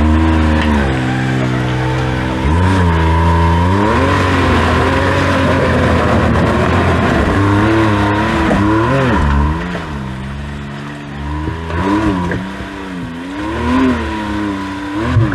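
Side-by-side UTV engine revving up and down in repeated throttle bursts under load, with a steady high whine throughout. It runs hardest for the first two-thirds, then eases to shorter, quieter blips.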